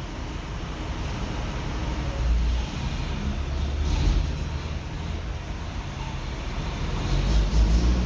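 Low rumble of a car and the traffic around it, heard from inside the car, swelling louder a few times.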